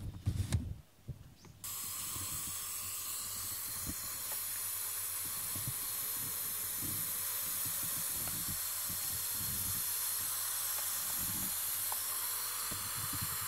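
Personal steam inhaler running with a steady hiss that switches on abruptly near two seconds in, with faint irregular low puffs underneath.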